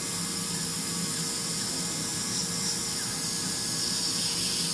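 Dental polishing handpiece running steadily against a cat's teeth during a scale and polish: an even hiss with a low steady hum underneath.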